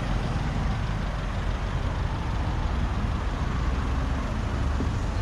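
Road traffic close by: cars running and passing in the street, a steady low rumble with no distinct single event.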